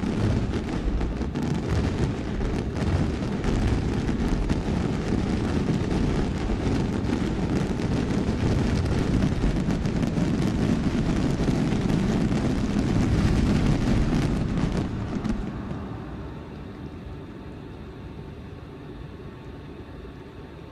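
Fireworks display: a dense, continuous barrage of bursts and crackling that dies away about fifteen seconds in, leaving a quieter low rumble.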